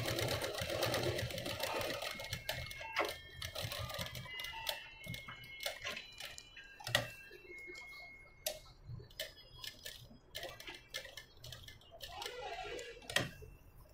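Black straight-stitch sewing machine running a short seam, its needle clattering rapidly for the first two to three seconds, then stopping, with scattered single clicks and knocks afterwards and another brief stretch of activity near the end.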